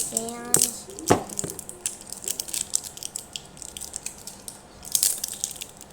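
A small plastic packet of toy play sand being handled and worked open: scattered small clicks and rustles, with one sharp click about a second in.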